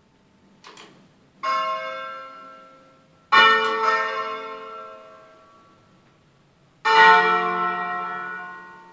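Bronze church bells from a peal of eight (D'Adda, 1954, tuned to D♭) struck one stroke at a time. There are three strokes, about two and then three and a half seconds apart, each ringing out and slowly dying away, and the last two are the loudest. A faint tap comes just before the first stroke.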